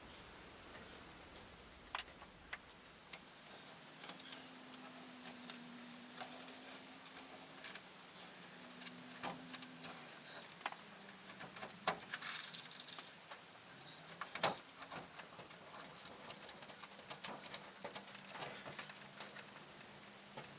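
Masking tape being peeled off an airbrushed panel: scattered faint crackles and clicks, a brief louder tearing hiss about twelve seconds in, and a sharp click soon after. A faint low hum comes and goes underneath.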